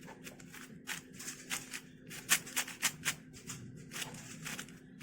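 YJ MGC 4x4 speedcube being turned by hand: quick, irregular clicks and clacks of its plastic layers, several a second, with one louder clack a little past the middle.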